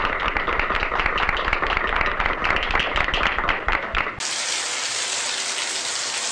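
A small audience clapping, with dense, rapid hand claps. About four seconds in, the clapping cuts off abruptly and a steady hiss takes over.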